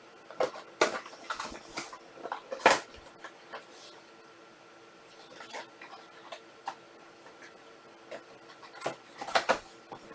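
Trading card packs and cards being handled: scattered clicks and short rustles, busiest in the first three seconds and again near the end, over a faint steady hum.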